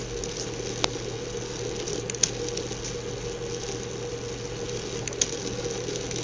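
Small electric motor running steadily with a low hum and a faint held high tone, with a few light clicks now and then.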